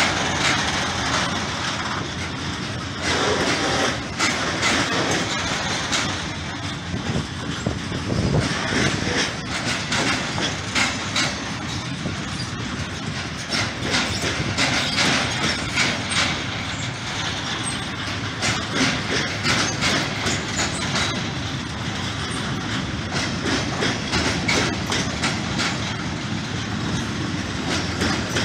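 Freight train of covered sliding-wall wagons rolling past close by, the wheels clattering over the rail joints in a continuous run of clicks and knocks.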